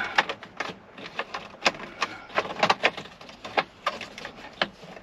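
Plastic interior trim parts being handled and pressed into place: a quick, irregular run of clicks and taps.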